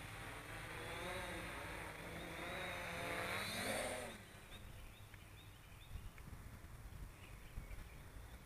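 Electric motors and propellers of the Bully Sport quadcopter whirring in flight, the pitch rising and falling with throttle changes. Loudest about three to four seconds in, then fainter as it flies off into the distance.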